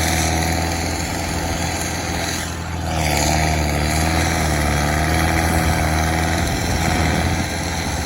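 Engine of a heavy landscaping machine running steadily, with a brief dip about three seconds in followed by a wavering whine.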